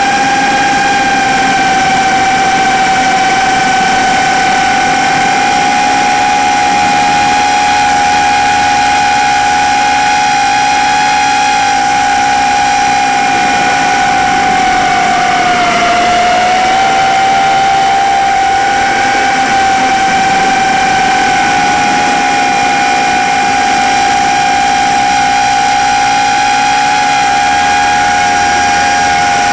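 Brushless motors and propellers of a 4-inch FPV quadcopter whining steadily in flight, loud and close as heard from on board. The pitch dips briefly about halfway through, then comes back up.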